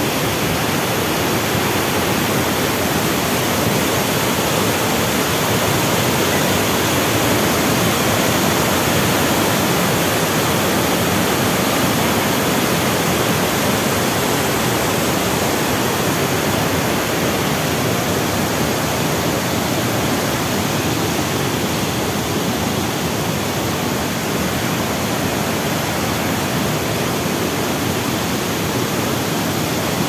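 Waterfall cascade, whitewater rushing over rock close by: a loud, steady rush of water with no pauses.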